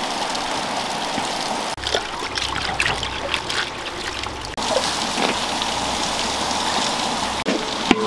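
Water trickling and splashing as a bunch of water mimosa is swished and rinsed in a clay pot of water, with a run of splashes near the middle, over a steady rushing hiss.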